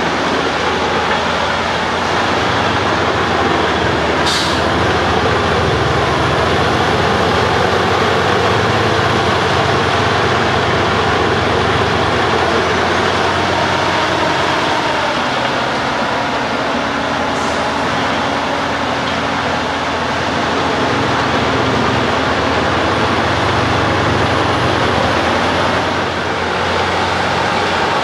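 Truck-mounted Bruks 1006 ST wood chipper and its separate 720 hp engine running steadily, chipping logging residue. Two brief hisses stand out, about four seconds in and again about halfway through.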